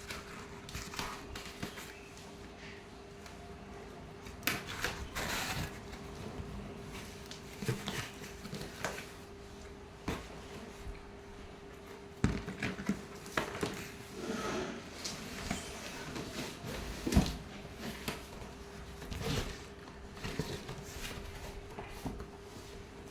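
Handling noises from unboxing a Kent gravity water purifier: scattered knocks, clicks and rustling as its plastic parts and packaging are taken out and moved about, the sharpest knocks about twelve and seventeen seconds in. A faint steady hum runs underneath.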